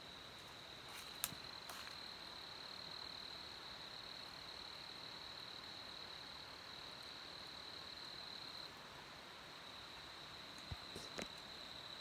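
A faint, steady, high-pitched trill from a night insect, with a few light clicks about a second in and again near the end.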